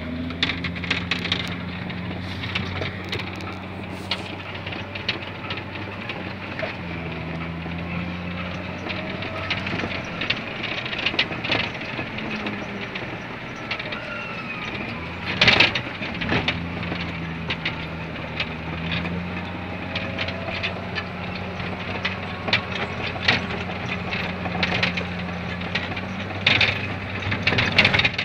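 Wheel loader's diesel engine running steadily under load, heard from inside the cab, with crunching and cracking of snow and ice as the bucket pushes through it. One loud knock about halfway through.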